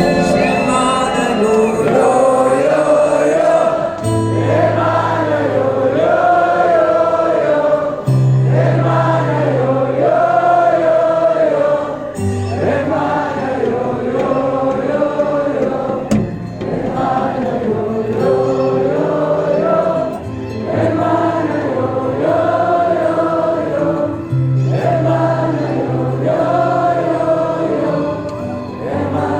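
Live music with wordless, chant-like singing over held bass notes, the sung phrases and the bass changing about every four seconds.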